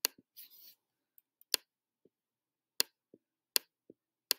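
Computer mouse clicking: five sharp single clicks roughly a second apart, with a few fainter clicks between them.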